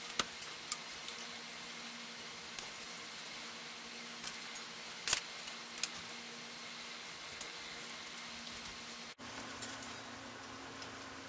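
Scattered sharp, light clicks and taps of a bicycle's inner brake cable being fed through the brake lever and cable housing, the loudest about five seconds in, over a faint steady hum.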